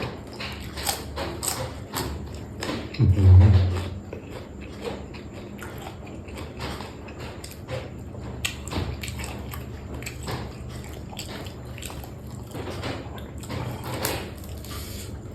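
Close-up chewing and lip-smacking of a person eating a spicy seafood papaya salad, irregular wet clicks throughout, with a brief low hum about three seconds in.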